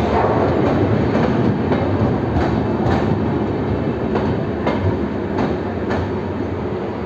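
Shatabdi Express LHB coaches rolling past with a steady rumble, their wheels clicking over rail joints about every half to three-quarters of a second. The sound eases slightly near the end as the last coach, a luggage and generator car, draws away.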